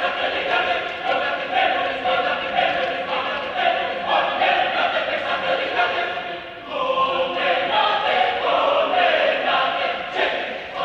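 Mixed adult choir of men's and women's voices singing a church choral piece, with a short breath between phrases about two-thirds of the way through.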